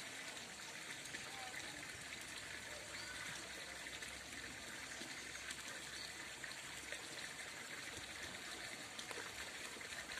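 Steady, faint trickle of running water at a pond, an even hiss with no change.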